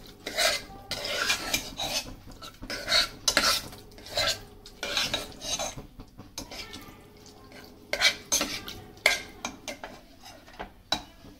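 Steel ladle stirring and scraping thick jaggery sweet pongal in a pressure cooker pan, with irregular scrapes and sharp clinks of metal on the pot. The strokes come thick in the first half and sparser later.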